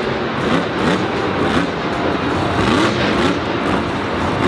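Megalodon monster truck's supercharged V8 revving hard, its pitch rising and falling several times in quick bursts as the truck pops up on its wheels.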